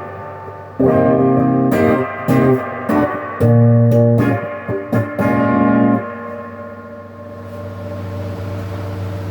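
Epiphone Les Paul Junior electric guitar, played on its single bridge pickup through a Crate GX15R amp's stock overdrive: distorted chords in a short choppy riff for about five seconds, then a last chord left to ring out.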